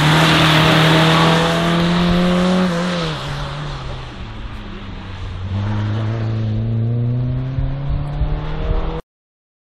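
A VW Golf slalom car's four-cylinder engine is held at high revs, then drops sharply about three seconds in as the driver lifts off. It pulls hard again from about halfway, over the hiss of tyres on the wet track. The sound cuts off abruptly near the end.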